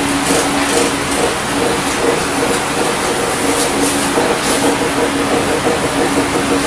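A steady mechanical noise with a low, steady hum, like a motor running, and a few faint clicks.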